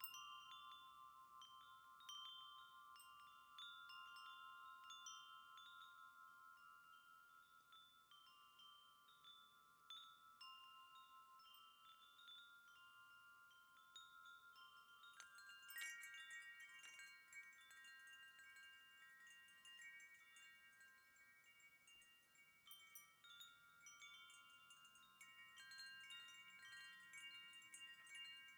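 Wind chimes ringing softly, struck again and again, their long tones overlapping. About fifteen seconds in, more of the chimes start ringing at once, brighter and busier.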